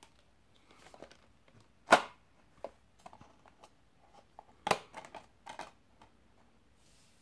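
Plastic clicks and clacks of Blu-ray discs and the hinged trays of a clear plastic multi-disc case being handled, discs snapping on and off their centre hubs. Two sharper clacks stand out, about two seconds in and again nearly three seconds later, among lighter ticks and rattles.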